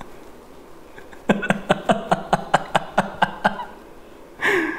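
A man laughing: a rapid, even run of short pitched 'ha' pulses lasting a couple of seconds, then a louder breathy cry falling in pitch near the end.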